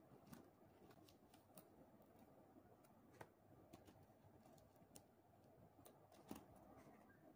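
Near silence with scattered faint clicks of small wooden clothespins being unclipped and handled on a twine line, the sharpest about three seconds in and again near the end.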